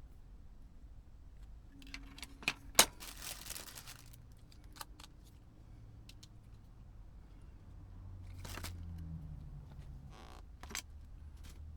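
Clicks and handling noise from a Blu-ray remote control being worked on during repair: a few sharp plastic clicks, the loudest about three seconds in, with a brief rustling scrape just after it and a few more clicks later.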